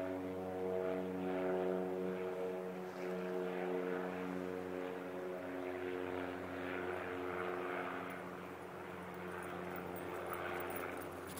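Seaplane's propeller engine droning steadily from across the loch as the plane comes in to land, fading somewhat near the end.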